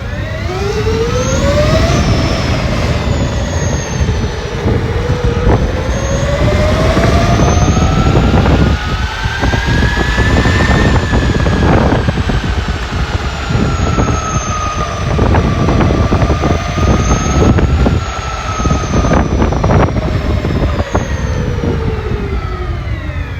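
Brushless electric motor rated 300 kV whining under load, its pitch climbing to a peak about ten seconds in, dipping, rising again a little past halfway and falling away near the end, over heavy low noise.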